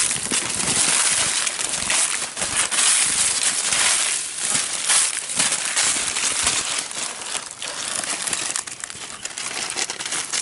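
Dry fallen leaves crunching and crackling as someone steps and pushes through leaf litter, a dense run of rough rustles with no pause.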